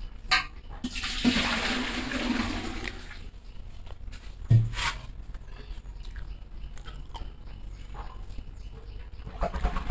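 Close-up eating sounds of a man eating roti and curry with his fingers from a steel plate: chewing and small scattered clicks. About a second in, a rushing hiss lasts about two seconds, and a low thump comes about four and a half seconds in.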